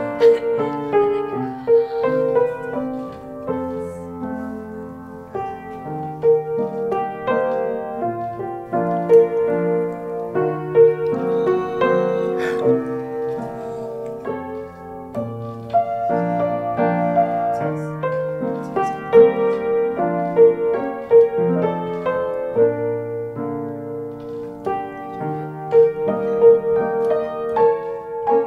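Background piano music, a gentle piece of repeating chords and melody.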